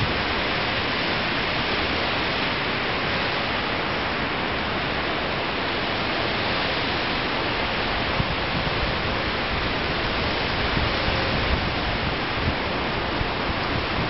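Wind blowing through pine trees: a steady, even hiss of moving needles and branches that holds without gusts or breaks.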